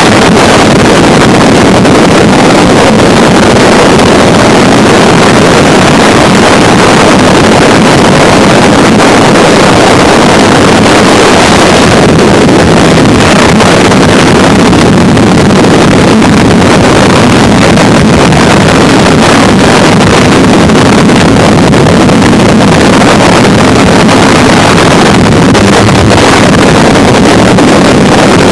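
Harsh noise music: a loud, dense wall of noise spread across all pitches, with no beat, melody or pause.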